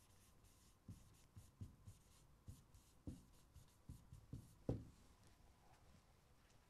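Faint, irregular taps and scratches of a pen on the glass of an interactive touch-screen display as words are handwritten, with the loudest tap about two-thirds of the way through.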